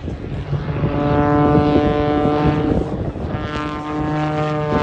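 MXS-RH aerobatic monoplane's propeller engine droning overhead at a steady pitch during a smoke-trailing dive. It dips briefly a little past halfway, then comes back.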